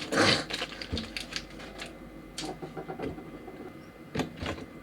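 Small plastic model-kit parts being clipped off their runners and handled: sharp plastic clicks and taps, with a brief burst of handling noise at the start and a louder click about four seconds in.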